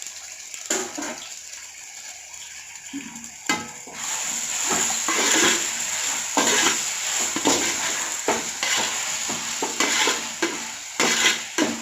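Tomatoes and green chillies sizzling in hot oil in a pan as a ladle stirs and scrapes them, with a few knocks of utensils on the pan. The sizzling grows much louder about four seconds in, when the tomatoes go into the oil.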